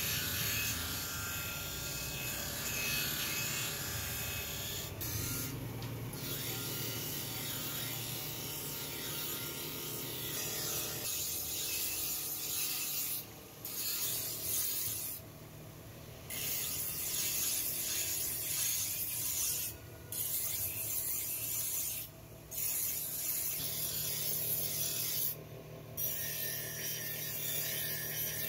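Motor-driven grinding wheel grinding a knife blade forged from iron rod: a steady harsh hiss of metal against the abrasive wheel over the motor's hum. It breaks off briefly about six times as the blade is lifted from the wheel and set back on.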